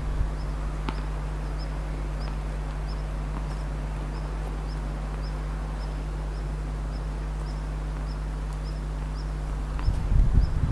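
Outdoor ambience: a steady low hum with a faint, high chirp repeating about twice a second, one light knock about a second in, and a brief low rumble near the end.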